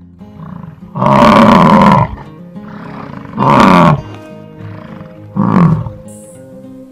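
Three loud animal calls over background music, the first about a second long and the other two shorter.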